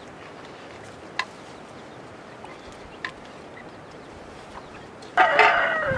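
A chicken squawks loudly near the end, a harsh call that falls in pitch. Before it, two sharp clicks stand out over a faint steady background.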